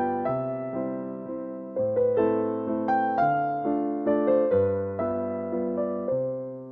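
A slow, gentle piano melody. Single notes are struck every half-second or so over low held chords, each one ringing and fading before the next.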